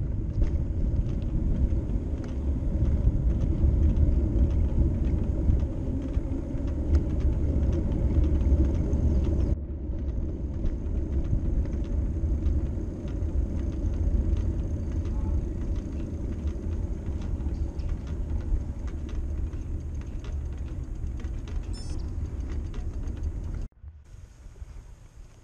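Riding noise from a bicycle on a paved path: a steady low rumble of tyres on pavement and wind on the handlebar-mounted camera's microphone, with faint ticking. The sound cuts out briefly about ten seconds in and again near the end, after which it is much quieter.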